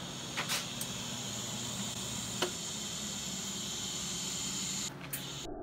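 TIG welding arc hissing steadily as steel channel is tack-welded, over a low steady electrical hum, with a few faint clicks. The hiss cuts off abruptly just before the end.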